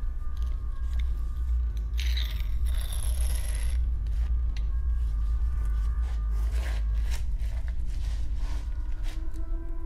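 Horror-film soundtrack: a low, rumbling drone under a scraping, rasping noise about two seconds in, then scattered clicks and light scrapes.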